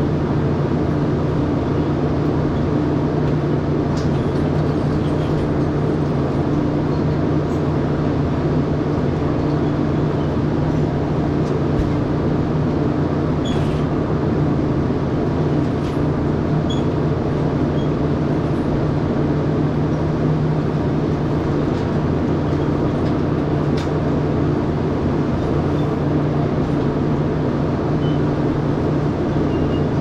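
Steady mechanical hum, a constant low drone that does not change, with a few faint clicks and knocks on top.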